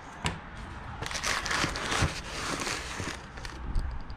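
Plastic packing wrap crinkling and rustling as a paint can is lifted out of its cardboard box, loudest between about one and three seconds in.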